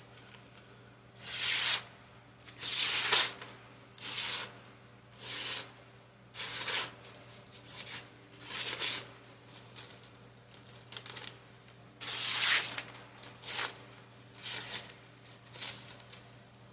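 A stiletto slip-joint pocket knife slicing through paper in about a dozen separate strokes, each a hissing cut of about half a second to a second.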